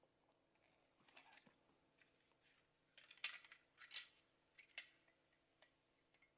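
Faint handling sounds: a few short scrapes and clicks, spread out over a few seconds, against near silence.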